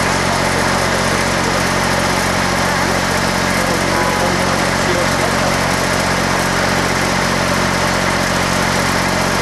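An engine running steadily at an even speed: a constant hum of low tones under a steady hiss, with no change in pitch.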